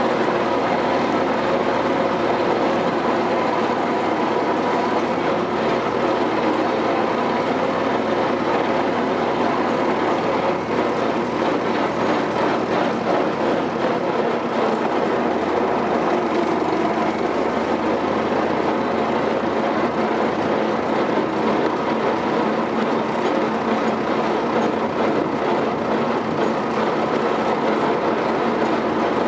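Continental Richard CD6M crawler bulldozer under way, heard from its seat: the diesel engine running steadily with the steel tracks clattering as it travels.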